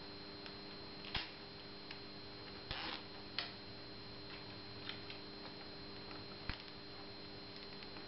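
Nylon cable tie being fitted and pulled tight around wiring on a handlebar: a handful of separate clicks and ticks, with a short rasp about three seconds in, over a faint steady hum.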